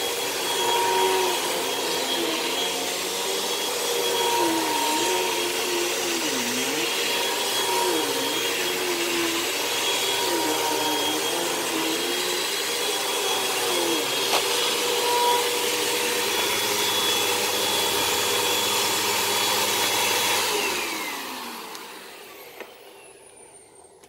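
Hoover Elite Rewind Plus upright bagless vacuum cleaner running on carpet, one of its tones dipping and recovering every second or two. About 21 seconds in, the motor is switched off and winds down, its pitch falling until it is quiet.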